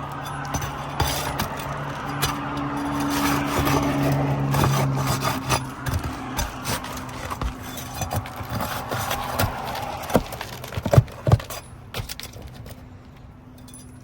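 Scraping and clicking as asphalt shingles are pried up and their nails worked loose, with two sharp clicks about eleven seconds in. A steady low hum runs underneath through most of it.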